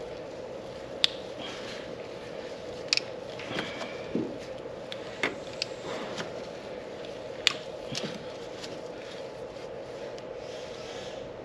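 A cartridge oil filter being fitted into a Mercedes Sprinter's oil filter housing and its cap screwed on by hand: a handful of sharp clicks and light scrapes a second or two apart, over a steady background hum.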